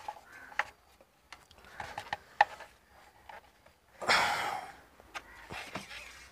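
Small clicks and handling noises from the plastic oil filler cap being screwed shut and the engine oil dipstick being drawn out, with a short rush of noise about four seconds in.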